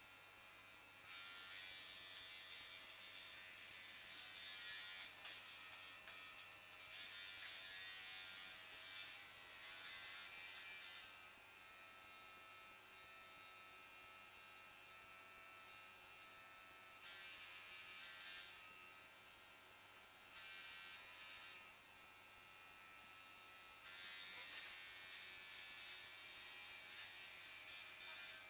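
Tattoo machine buzzing steadily, its pitch and loudness swelling and easing every few seconds.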